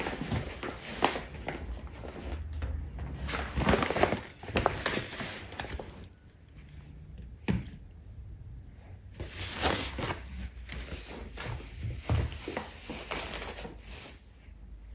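Plastic produce bags crinkling and rustling as produce is handled, in uneven bursts, with a few soft knocks of items set down on the countertop.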